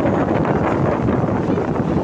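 Steady wind buffeting the microphone over the running noise of a vehicle. No horn is sounding.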